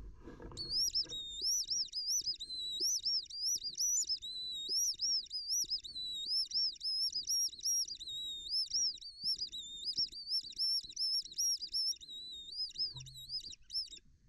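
Squirrel distress call, used to draw squirrels out: a long run of rapid, high squealing chirps, very regular in pitch, that stops abruptly near the end.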